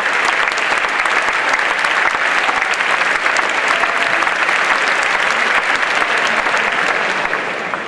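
Large audience applauding: dense, steady hand-clapping that begins to fade near the end.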